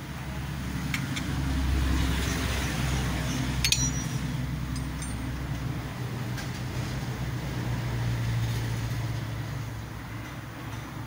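A motor vehicle engine running nearby, a steady low hum that swells twice, with a few light metallic clicks and clinks, the sharpest about four seconds in.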